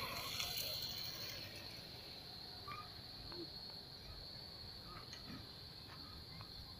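Insects chirring in one steady, high-pitched band, with a few faint short chirps scattered through and a low rumble underneath.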